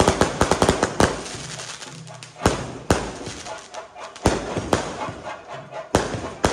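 Aerial firework shells bursting. A fast string of crackling reports comes in the first second, then single loud bangs follow every second or so, each with a short echo.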